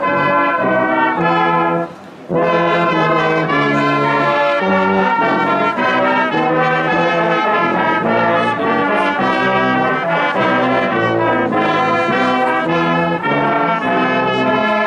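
A large brass band playing a tune outdoors, several brass instruments sounding together in changing chords. There is a brief break in the playing about two seconds in.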